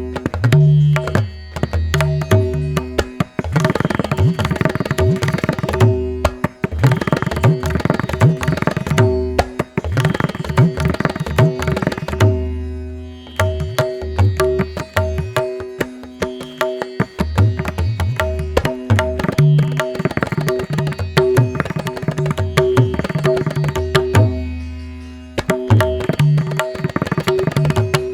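Background music: Indian instrumental with tabla-like drumming over a steady drone.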